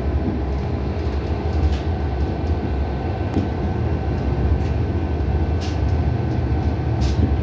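Cabin running noise of an ASD BDe 4/4 electric railcar pulling out and rolling slowly: a steady low rumble with a faint steady whine and a few short, sharp clicks from the running gear on the track.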